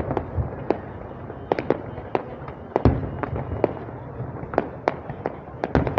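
Fireworks going off in an irregular string of sharp bangs, the loudest about three seconds in, over the steady chatter of a large crowd.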